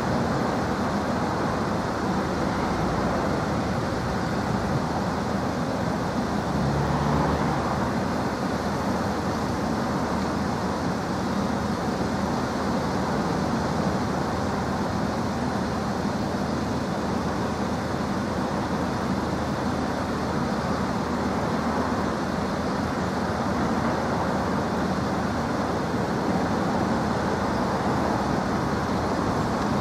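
Level crossing's old electric warning bells ringing continuously while the barriers are down.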